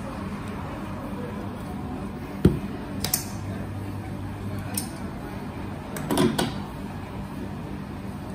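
Coffee-bar work sounds: a steady background hum with a few scattered knocks and clinks of dishes and metal. The loudest is a dull knock about two and a half seconds in, followed by a short cluster of clinks around six seconds.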